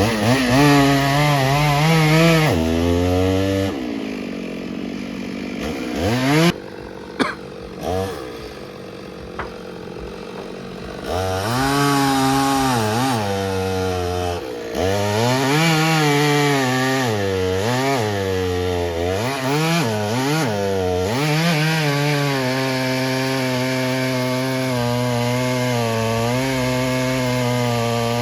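Chainsaw cutting wood, its engine pitch rising and falling as it revs and drops under load. For several seconds it eases off, with a few sharp knocks, then revs back up and runs steadily near the end.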